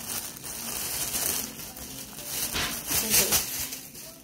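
Thin plastic grocery bag rustling and crinkling as it is shaken out and handled, louder in bursts about a second and a half in and again about three seconds in.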